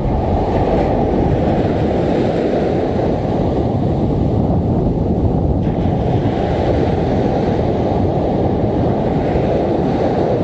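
Steady wind rumbling on the microphone over surf breaking and washing up a sandy beach.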